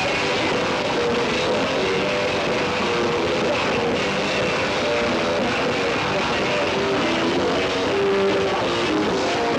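Rock band playing live, with guitars, in a steady, loud, continuous passage.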